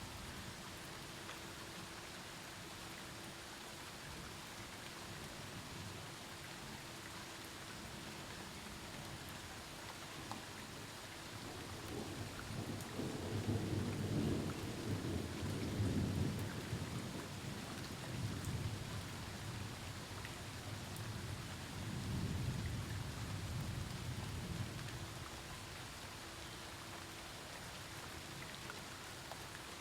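Steady rain falling during a thunderstorm, with a long low roll of thunder that builds from a little under halfway in, swells twice and fades away, leaving the rain.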